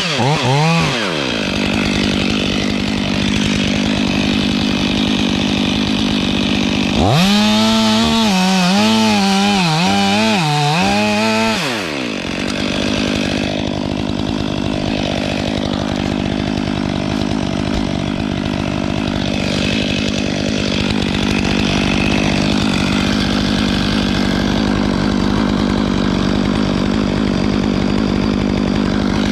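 Stihl 500i two-stroke chainsaw running throughout, revved up and down once at the start. From about seven to twelve seconds in it runs at high revs, its pitch dipping and recovering several times as it cuts into the wood.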